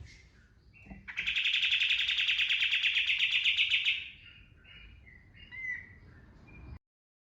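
Kapas tembak bulbul singing: a loud, very fast rapid-fire trill lasting about three seconds, its 'tembakan' shot, with softer short chirps before and after. The sound cuts off abruptly near the end.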